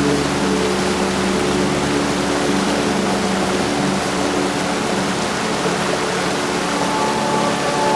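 Heavy rain falling as a steady, dense hiss, with a low steady hum of several tones beneath it and a higher tone joining near the end.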